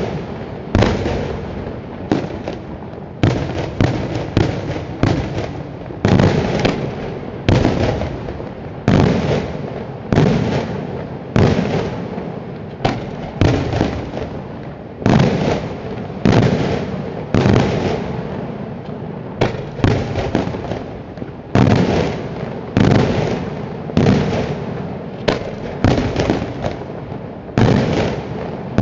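Daytime display fireworks: aerial shells bursting in a steady series of loud bangs, about one a second, each followed by a fading rumble.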